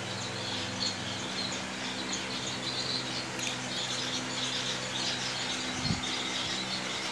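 Aviary of small cage birds chirping and chattering continuously, many short high chirps overlapping, over a steady low hum.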